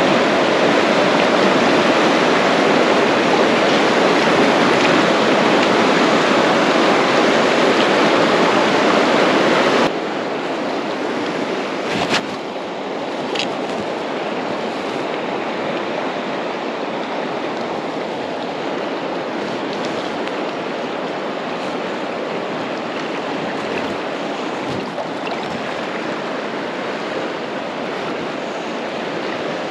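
Fast river water rushing and rippling over stones and boulders, a steady noise that drops somewhat in level about ten seconds in, with a couple of short clicks a few seconds later.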